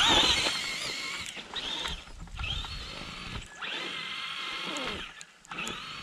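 Traxxas Stampede two-wheel-drive RC monster truck's electric motor and drivetrain whining in a series of throttle bursts, rising and falling in pitch, as its tyres spin and dig through snow. The loudest burst comes at the start.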